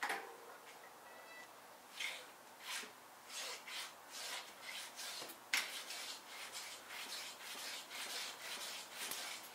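A mountain bike being pushed and rolled on carpet: soft scuffs and rubbing from the tyres and frame, with a sharper click about five and a half seconds in.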